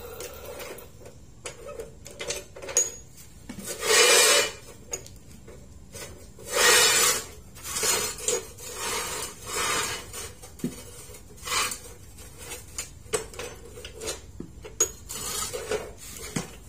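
Steel rebar rods clinking and rattling against each other and the cut-off saw's steel vise as they are slid into place and clamped. There are many short metal knocks, with two louder rasping bursts about four and seven seconds in.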